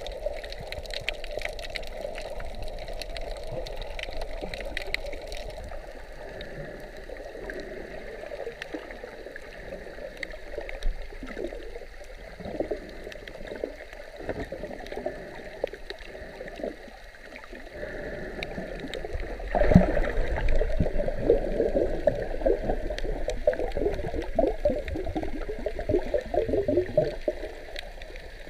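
Muffled underwater water noise: water gurgling and bubbling with small crackles. It gets louder and busier with bursts of bubbles from about twenty seconds in.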